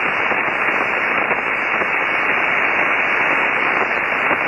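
Steady hiss of shortwave band noise from a Kenwood TS-480 transceiver's speaker, tuned to an upper-sideband voice channel on 20 metres, with no readable voice. The hiss is cut off sharply above the receiver's narrow voice filter, so it sounds muffled and thin.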